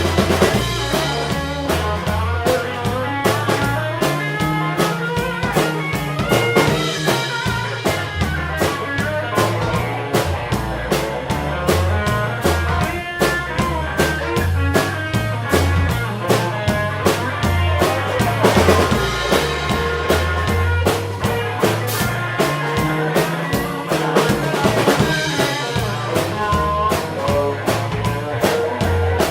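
Blues rock band playing an instrumental passage: a drum kit keeping a steady beat over a repeating bass line, with guitar and a Seydel harmonica.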